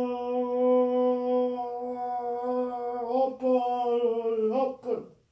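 A person's voice holding one long sung note at a single steady pitch for about four and a half seconds, with a brief wobble about three seconds in, then breaking off.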